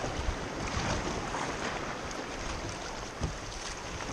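Sea water washing and splashing around a sea kayak as the double-bladed paddle strokes through it, with wind buffeting the microphone.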